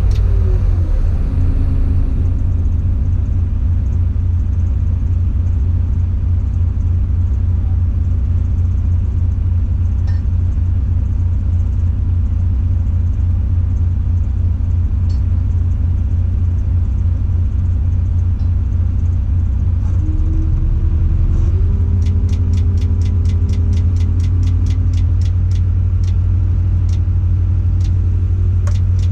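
Tadano 180G-5 all-terrain crane's engine running steadily, heard from inside the operator's cab. About twenty seconds in, a tone rises in pitch and then holds higher as the engine is brought up for a crane movement, and soon after a fast, even ticking of about four a second starts.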